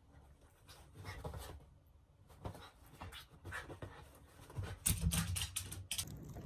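A Shiba Inu's quick panting breaths, with scratchy rustling that gets busiest and loudest about five seconds in.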